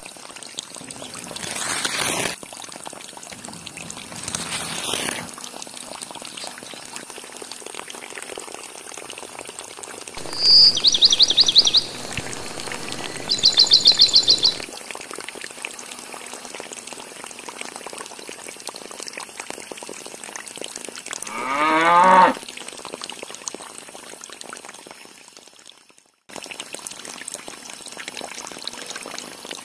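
Water from a miniature pump's pipe pouring and splashing steadily into a flooded model field. Two short high chirping trills sound about a third of the way in, and a cow moos once, rising in pitch, a little past two-thirds of the way in.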